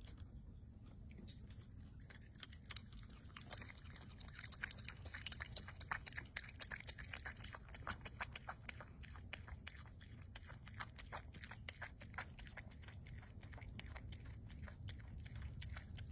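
Virginia opossum chewing its food: a fast run of faint, smacking clicks, thickest through the middle and thinning out near the end.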